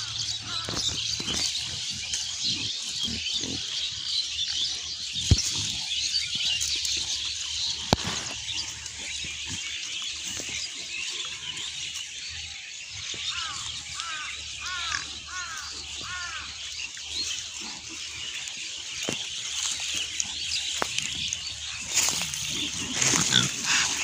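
A herd of pigs grunting as they root and forage, over a steady background of high chirping.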